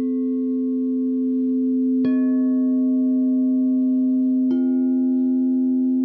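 Quartz crystal singing bowls tuned to 432 Hz ringing with long, steady tones. One bowl is already sounding, and two more are struck in turn, about two seconds in and again near four and a half seconds, each adding its own note to the blend.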